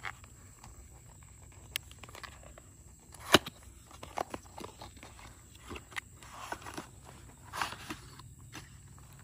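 Hands opening a small paperboard retail box: scattered light clicks and scrapes, a sharp snap about three seconds in as the tucked top flap comes free, then a rustle as the plastic tray inside slides out.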